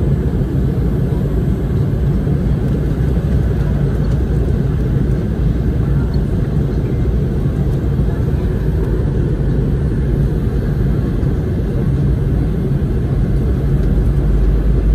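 Steady low rumble of an airliner's engines and airflow, heard from inside the cabin on the approach to landing; the deepest part of the rumble grows a little louder near the end.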